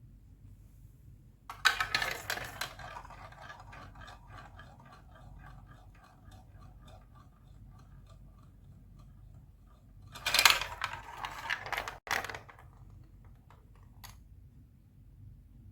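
Marbles clattering onto and rolling along a plastic Lego Duplo marble-run track: a sharp clatter about a second and a half in, then a rattle of rapid ticks that fades over several seconds. A second clatter comes around ten seconds in, and a single click near the end.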